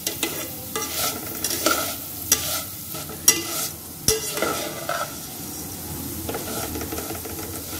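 Metal spatula stirring vermicelli as it roasts in ghee in a metal saucepan: the strands scrape against the pan and the spatula knocks it in irregular sharp clicks, over a light sizzle.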